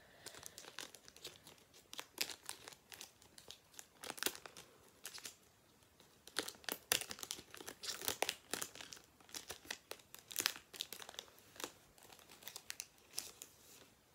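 Foil wrapper of a Pokémon booster pack crinkling and tearing as it is opened by hand, a dense run of irregular sharp crackles, loudest about halfway through.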